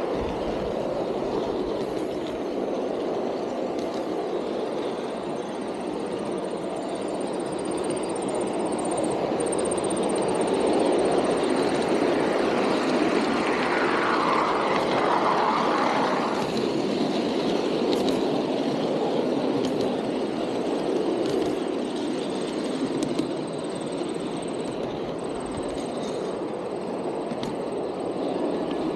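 Outdoor model train running along its track, heard from one of its own cars: a steady rolling and running noise of wheels on rails, a little louder around the middle.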